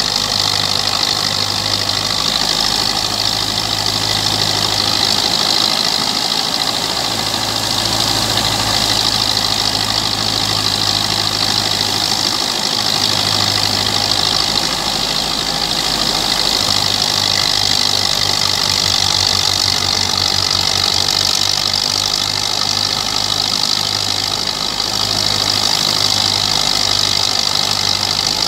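Belarus 510 tractor's diesel engine running steadily under heavy load, driving a threshing machine. A steady hiss from the running thresher sits over the engine.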